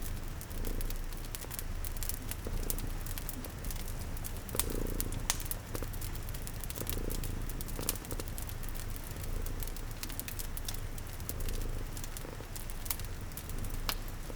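Cat purring steadily in slow swells, layered with the irregular sharp pops of a crackling wood fire and a steady hiss of rain.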